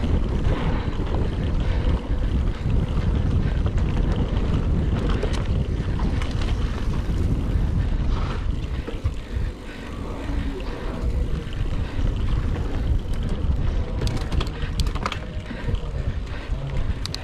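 Mountain bike riding heard from a bike-mounted camera: wind buffeting the microphone over a steady rumble of tyres and frame on a dirt trail, with a few sharp clicks and rattles about three-quarters of the way through.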